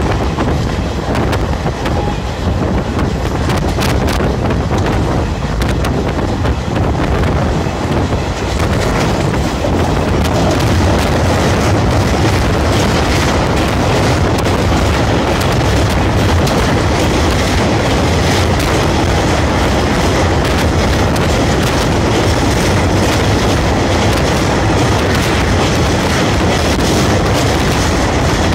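Express passenger train running at speed, heard from onboard: a loud, steady rumble of steel wheels on the rails that grows louder and brighter about eight seconds in as the train rolls onto a steel truss railway bridge.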